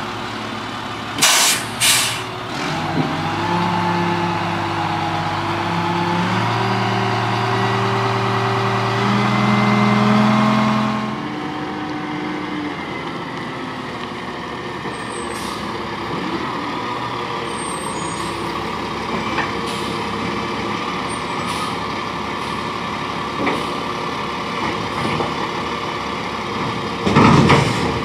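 1999 Crane Carrier garbage truck with an Impac CSL body: two short hisses of air from the air brakes, then the diesel engine revving up in steps for about eight seconds while the truck stands at the dumpster, as it does to drive the body's hydraulics. The engine then drops back to a steady idle, with another short air hiss near the end.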